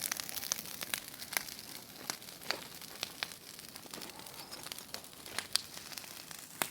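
Wood bonfire crackling, with irregular sharp pops over a faint hiss.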